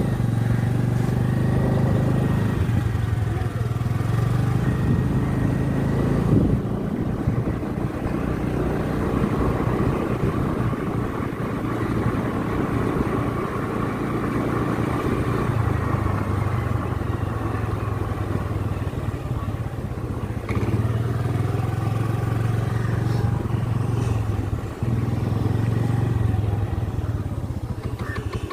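Motorcycle engine running while riding, its low note easing off and picking up again a few times.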